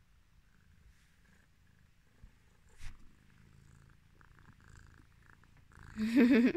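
Domestic cat purring a lot, a low steady rumble, with a single click about three seconds in and a brief, louder pitched vocal sound near the end.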